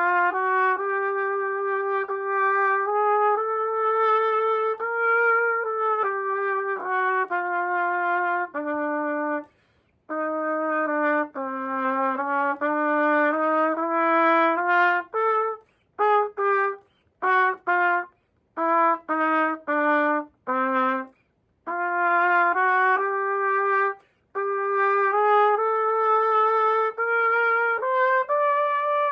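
Yamaha YTR-2330 B-flat student trumpet played after repair of drop damage: a melody of held notes, with a passage of short, separated notes in the middle and brief pauses for breath.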